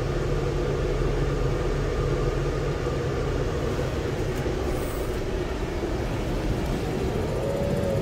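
Fendt 720 tractor's six-cylinder diesel engine running steadily under load while pushing snow. A low hum in the engine note fades about three seconds in.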